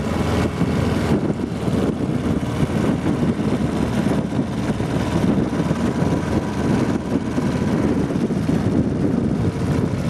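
Small outboard motor on an aluminum jon boat running steadily while the boat is under way.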